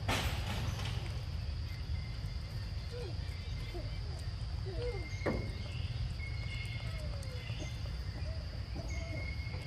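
Forest insects keeping up a steady high-pitched drone, with scattered faint short bird calls and a low steady rumble underneath. A sharp click at the very start and another about five seconds in.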